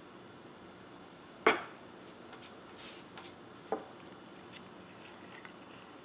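Knife and fork cutting steak on a wooden cutting board: a sharp clack of cutlery against the board about a second and a half in, a softer one a couple of seconds later, and a few faint ticks.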